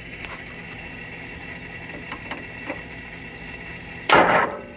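Electric starter motor on a Kohler Command 20 engine, freshly repaired with welded-up washers, spins in one short, loud grinding burst about four seconds in. Before it, a faint steady hum and a few light clicks.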